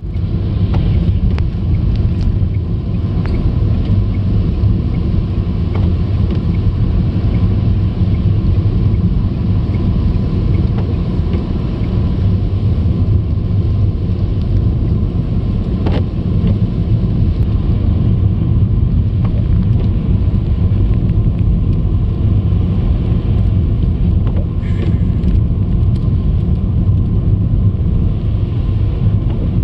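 Steady low rumble of a car driving along a slushy highway, heard from inside the cabin: engine and tyre noise.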